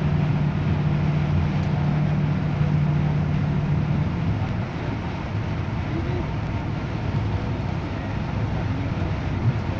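Car interior noise while driving in heavy rain: a steady rush of wet tyre and road noise with rain on the car, under a low drone that fades about four seconds in.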